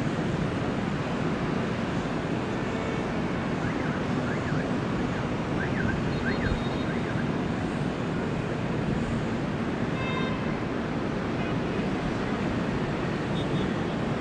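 Steady rumble and hiss of distant outdoor traffic noise, with a few faint high chirps around the middle and a brief horn-like tone about ten seconds in.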